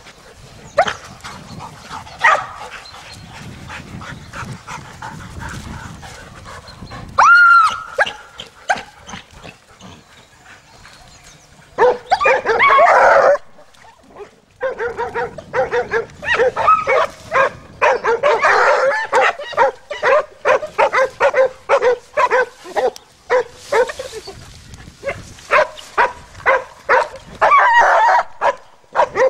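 Hunting hounds giving voice: a few single barks and long drawn-out bays in the first half, then rapid, repeated baying through the second half as the pack works the bramble cover.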